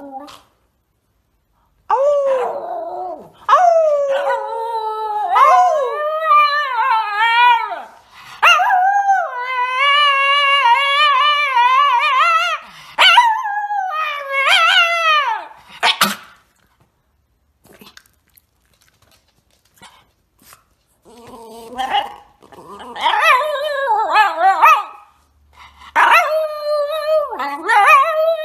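Shiba Inu howling in long, wavering high notes, in two bouts with a few seconds' pause between them.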